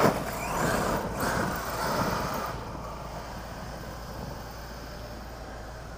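Radio-controlled off-road truck driving away across loose dirt, its motor and tyres loudest at first and fading over the first two or three seconds.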